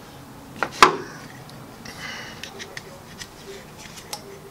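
Plastic wiring connectors and loose wires being handled and pushed together at a drive-by-wire throttle body harness, with a few small clicks and rustles. One sharp click about a second in is the loudest sound.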